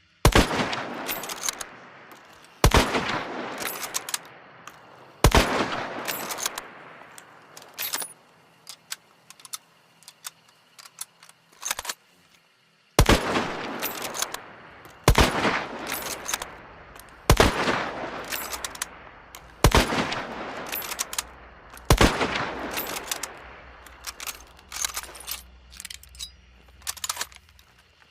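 Mosin-Nagant obrez (cut-down bolt-action rifle, 7.62×54R) firing eight single shots, each a sharp crack with a long echoing tail, about two and a half seconds apart. Three shots come first, then a pause with a few clicks, then five more, with softer metallic clicks of the bolt being worked between shots.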